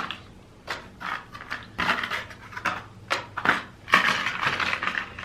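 Irregular small metallic clicks and clinks as new disc brake pads are handled and fitted into a SRAM Elixir 1 brake caliper.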